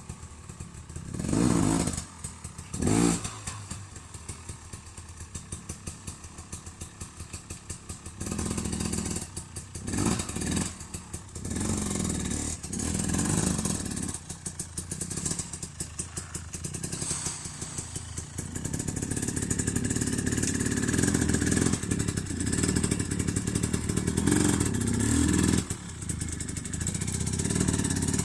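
KTM 250 enduro motorcycle engine revving off-road, the throttle opening and closing in repeated surges: two sharp, loud revs in the first few seconds, then louder, longer pulls in the second half.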